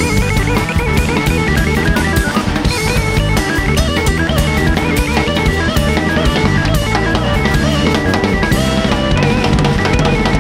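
Rock music with a steady drum-kit beat, bass drum and guitar.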